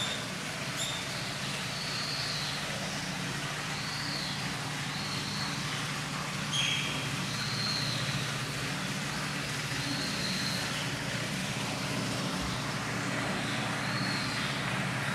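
Eurasian otter giving short high-pitched calls, about eight in all, one every second or two, over a steady low hum.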